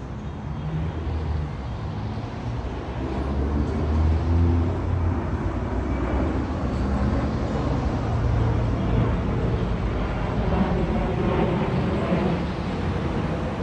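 Low, continuous rumble of engine or traffic noise with a background hiss, swelling louder around four seconds in and again near the middle.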